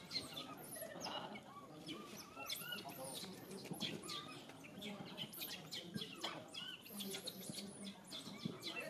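Many small birds chirping at once, a dense run of short, quick chirps overlapping throughout.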